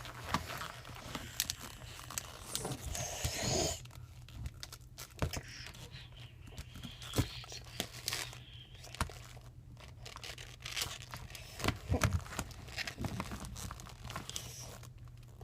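Scattered clicks, knocks and rustling of objects being handled and moved about.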